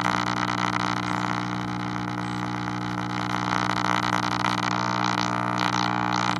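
1948 Travler five-tube AM radio playing with a loud, steady power-supply hum buzzing over a station's audio, which barely comes through. The hum is the sign of the set running with no filter capacitors.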